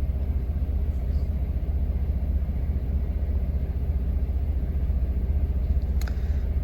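Steady low rumble of a semi truck's engine running, heard inside the cab, with a faint click about six seconds in.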